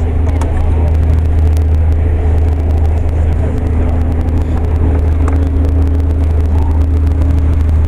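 An engine running steadily, a deep even hum with fainter steady tones above it, and light scattered clicks over the top.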